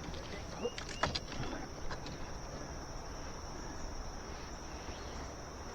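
Steady, high-pitched chirring of insects, crickets or katydids, with a few faint clicks and knocks in the first second or so.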